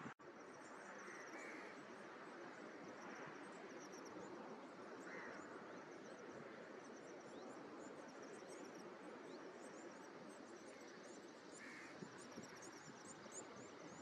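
Faint outdoor ambience: a steady hiss with many quick, high chirps throughout, and a few softer, lower calls about a second and a half, five and twelve seconds in.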